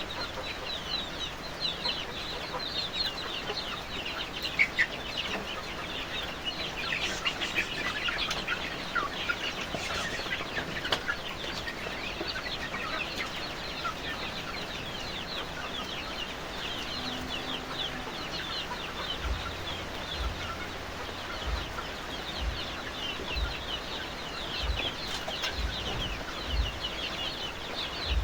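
A flock of kampung chickens calling, with many short, high, overlapping calls in a continuous chatter. A few low knocks come in the second half.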